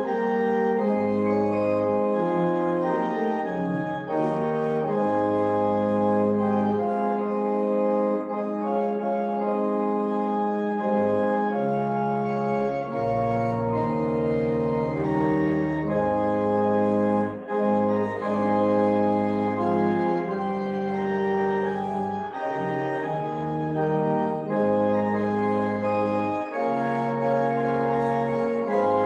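Church organ playing the postlude that closes the service: slow, sustained chords over held bass notes, changing every second or two.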